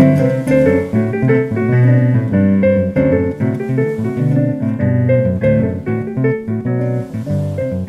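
Instrumental music: a Casio digital piano plays a flowing line of notes, with a classical guitar accompanying.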